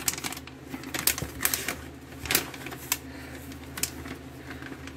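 Plastic MRE packaging crinkling and clicking as it is handled: irregular sharp crackles and taps, the loudest about two seconds in.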